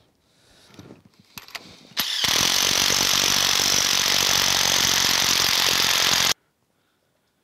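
DeWalt cordless impact gun running for about four seconds, driving a bolt home with a fast, even rattle; it starts abruptly about two seconds in and cuts off suddenly. Before it, a few faint clicks of bolts being threaded by hand.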